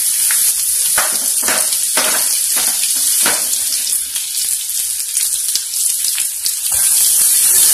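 Freshly added chopped onions sizzling in hot oil with cumin seeds in a metal kadai. There are a few light knocks in the first few seconds, and the sizzle grows louder near the end.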